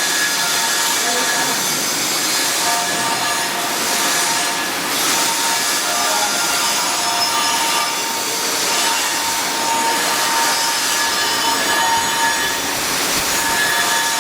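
Electric welding arc on carbon-steel pipe, sizzling steadily.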